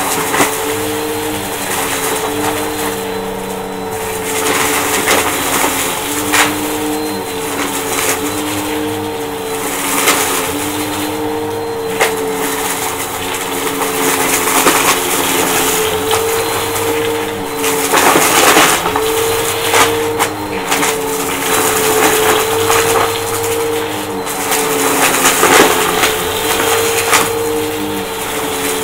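Upright vacuum cleaner running on a shag rug, its motor hum wavering in pitch every second or two as it is pushed back and forth, with crunching and crackling as it sucks up scattered crunchy debris.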